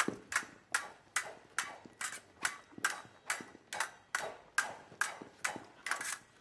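Swords clashing blade on blade in a steady rhythm, about fifteen sharp metallic strikes at roughly two and a half a second, each with a short ring.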